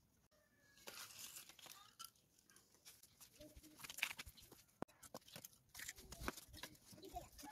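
Faint crunching and crackling of dry leaves and twigs under bare feet, with scattered light clicks and knocks as pieces of split wood are handled.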